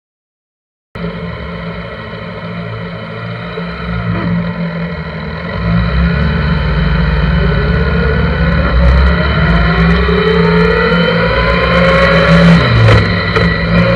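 A 1983 Honda GL1100 Gold Wing's flat-four engine, heard from the handlebars while the sidecar rig is ridden. It cuts in about a second in, then accelerates, its pitch rising and the sound growing louder over the second half.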